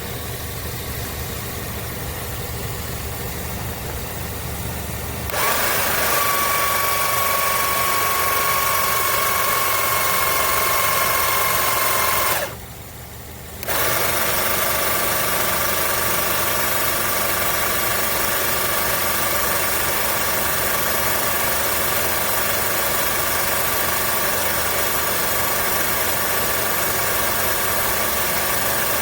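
The 12V electric car jack kit's motor running: a steady hum that steps up to a louder run with a high whine about five seconds in, pauses briefly about halfway through, then runs steadily again.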